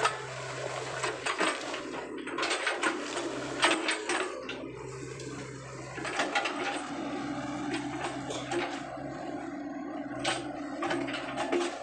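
Small crawler excavator's diesel engine running steadily, with repeated crackling and rustling as its bucket and blade push through piles of palm fronds and brush in shallow floodwater.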